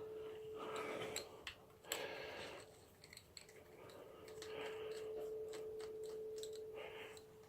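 Faint, irregular metallic clicks and ticks of hand tools and bolts as the clutch cover bolts come out, over a steady faint hum.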